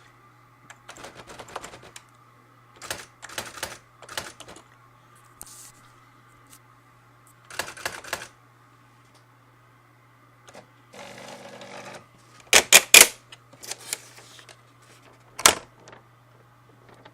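Brother EM-411 electronic typewriter clattering in short bursts of rapid strikes, with a brief whirring mechanism movement about eleven seconds in and the loudest strikes just after it. A faint steady machine hum runs underneath.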